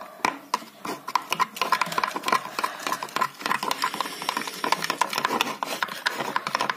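A metal spoon stirring and scraping a thick shampoo, water and powder mix in a plastic tub, with quick, irregular clicks and scrapes against the container. This is the first stage of mixing a homemade slime.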